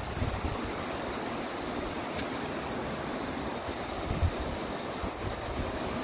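Steady rushing of a mountain stream, with a brief low buffet of wind on the microphone about four seconds in.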